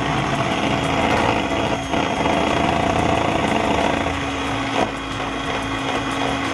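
Electric hand mixer running steadily, its beaters whisking a raw egg in a bowl. The motor gives a constant hum under an even whirring.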